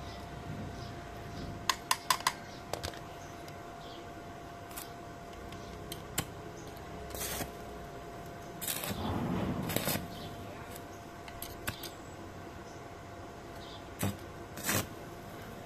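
Handling of small hard parts at a workbench: a quick run of sharp clicks about two seconds in, scattered knocks, a longer scraping sound around nine seconds, and two more knocks near the end, over a faint steady hum.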